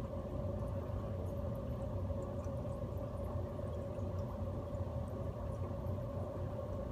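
Steady hum of an aquarium pump running, with faint water trickling and tiny ticks over it.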